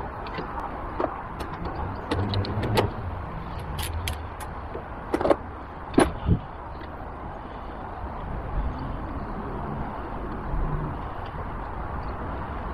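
Scattered metallic clicks and knocks of a half-inch-drive socket wrench with a Torx bit working on the scooter's grab-handle bolts, the loudest a few sharp ones about five and six seconds in, over a steady low rumble.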